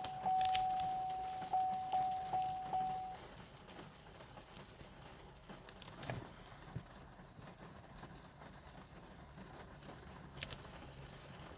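Chevy Volt warning chime: one steady ding that sounds again about five times, faster toward the end, and stops about three seconds in. It goes with the car's no-start fault. After that there is only faint cabin quiet with a few small clicks.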